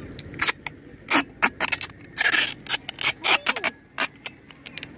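Adhesive tape being pulled off the roll in short strips and pressed over the open face of a metal ceiling fan box to seal it: a string of short pulls, with one longer pull a little over two seconds in.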